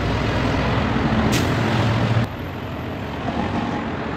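A nearby motor vehicle running: a steady low engine hum under broad road noise, with a short hiss about a second in. The sound drops away suddenly a little over two seconds in.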